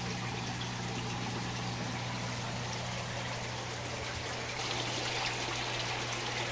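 Water trickling and running into an aquaponics fish tank over a steady low hum. The water grows slightly louder and brighter about two-thirds of the way through.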